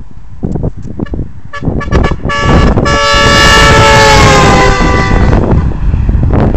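Yankee YMT-6122 air horns sounding one long blast of about three seconds, several tones together, sagging slightly in pitch just before they stop. Knocks and rumble come before the blast.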